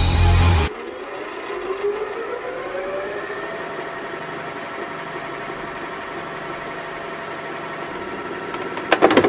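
VCR fast-forwarding a videotape: a loud low hum cuts off under a second in, then the tape motor's whine rises in pitch and settles into a steady whir, with a few clicks near the end.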